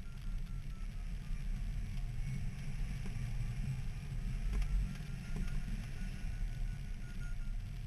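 Wind rushing and buffeting over the microphone of a camera mounted on a hang glider in flight, a gusty low rumble. A faint, rapidly beeping tone runs underneath, dipping slightly in pitch and then rising again.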